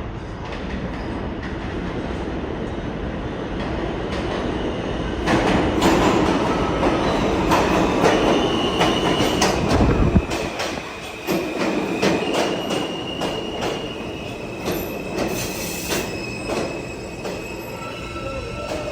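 New York City subway train running through the station, its noise building about five seconds in, with repeated clacking of wheels over rail joints and steady high-pitched wheel squeal. A single low thud near ten seconds.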